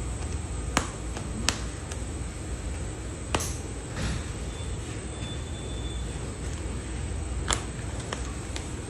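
Several sharp, irregular clicks and ticks from fingers and paper working at the edge of an iPhone XR's screen, prying it open, over a steady low hum.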